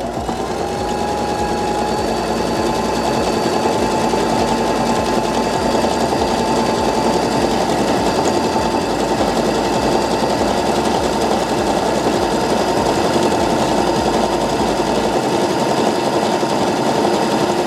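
Baby Lock Joy sewing machine running at a steady speed, sewing a tricot (triple zigzag) stitch. The motor picks up speed over the first second, then holds an even, busy hum.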